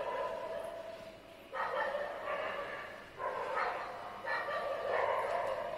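A dog whining in a series of drawn-out cries, each about a second long, coming nearly back to back.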